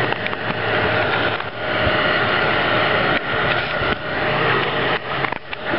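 Electric heat gun running steadily, its fan motor giving a constant whine over rushing air as it warms carbon fiber vinyl film to make it pliable for forming.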